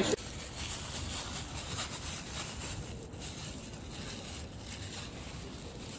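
Steady low background noise with faint scattered rustles and small clicks.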